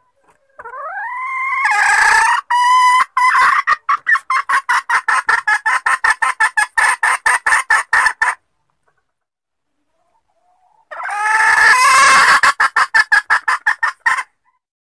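Junglefowl hen calling, as used in a decoy (pikat) call to lure wild junglefowl cocks. There are two loud bouts a few seconds apart. Each opens with a rising note and runs into a fast string of short repeated clucks, about four a second.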